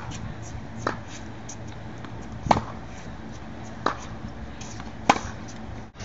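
Tennis balls struck with a racket: four sharp pops about one and a half seconds apart, alternating softer and louder, over a steady low hum.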